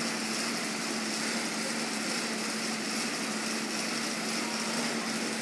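Assault air bike being pedalled hard: the spinning fan wheel makes a steady whirring rush of air with a low, even hum under it.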